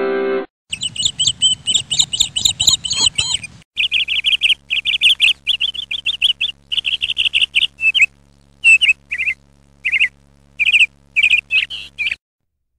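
Birds chirping in many short, high trills in quick succession, some of them loud, with a steady low hum under them from about four seconds in. The chirping stops shortly before the end. The last of an organ-like tune is heard in the first half second.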